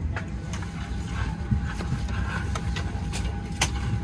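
Steady low rumble inside a vehicle cabin, with a faint steady whine and a few sharp clicks, the loudest near the end.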